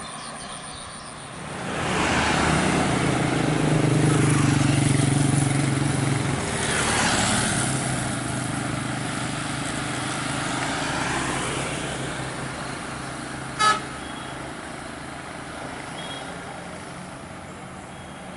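Road traffic passing close by: vehicles sweep past about two seconds in and again around seven seconds in, with engine hum and tyre noise that swell and fade. A single short, sharp horn beep sounds about fourteen seconds in.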